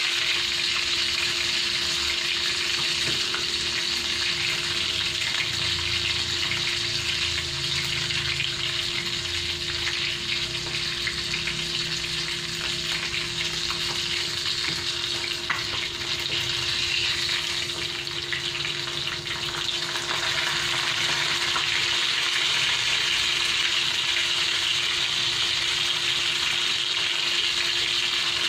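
Slices of dalag (striped snakehead fish) sizzling steadily as they pan-fry in hot oil, with a faint steady hum underneath.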